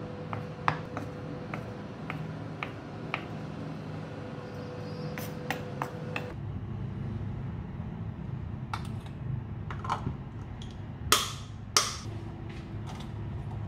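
Kitchen knife chopping Spam into cubes on a wooden cutting board: a run of short sharp taps, a few to the second. About six seconds in this gives way to scattered clicks and two louder clacks near the end, as chopped green onion is tipped from a small container into a pan.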